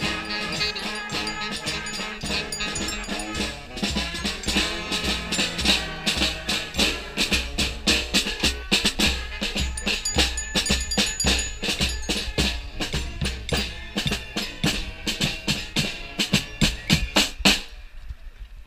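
Street brass band playing: horns over a steady drum beat, the drums growing busier after a few seconds. The band stops abruptly about a second before the end.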